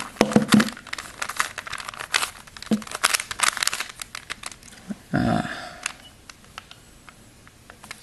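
Plastic Rubik's Cube layers being turned quickly by hand: a run of rapid clicks and rattles. The clicking thins out about five seconds in, with one short, louder muffled sound, and stops over the last second or so.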